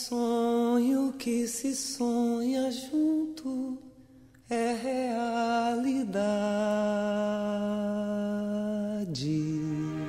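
Slow song: one voice sings short phrases, breaks off briefly about four seconds in, then holds one long note for about three seconds before the pitch drops near the end.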